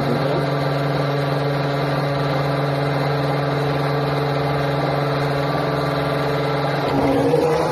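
Small cooling fan motor in a cake display fridge running with a steady hum.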